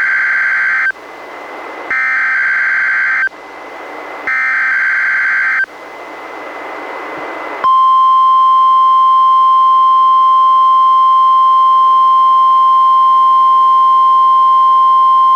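NOAA Weather Radio weekly test received on a Reecom R-1630 weather radio. Three short bursts of EAS/SAME digital header data, about a second each, have static hiss between them. About eight seconds in, the steady 1050 Hz warning alarm tone starts and holds.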